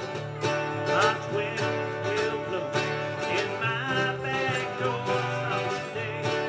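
Live acoustic band playing, with strummed acoustic guitars and a wavering lead melody line over them.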